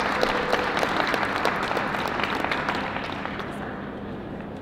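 Audience applauding, dying away toward the end.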